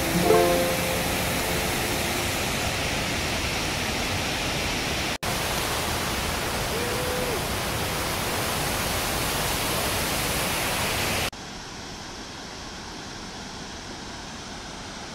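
Steady rush of river water pouring over rock ledges in the Presque Isle River rapids, with a brief dropout about five seconds in. About eleven seconds in it drops to a quieter, more muffled rush of the river heard from farther away.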